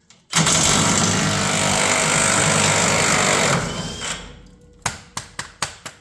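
Impact wrench hammering hard for about three seconds on a leaf spring bolt, then trailing off, followed by a quick series of sharp clicks near the end.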